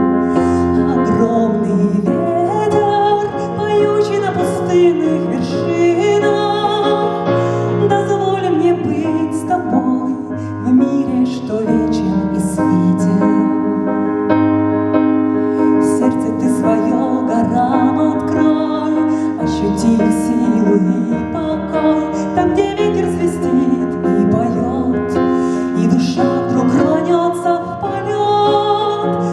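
Instrumental break in a song: piano and keyboard backing with sustained chords and a wavering melody line over them, no sung words.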